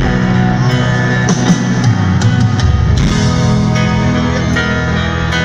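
Live rock band playing loudly through a concert PA: sustained instrumental notes over drum hits.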